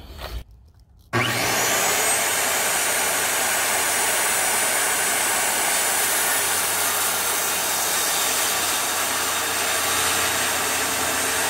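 Corded circular saw starting up about a second in, its motor spinning up, then running steadily as it cuts a length of 2x4 stud.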